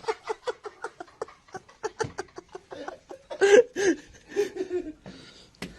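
A person laughing: a long run of short, quick laughs, about four or five a second, growing louder about three and a half seconds in.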